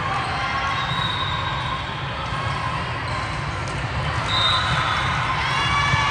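Echoing sports-hall din during youth volleyball play: many overlapping young voices calling and shouting over a steady low rumble, with ball thuds and two short high squeaks. The voices swell toward the end.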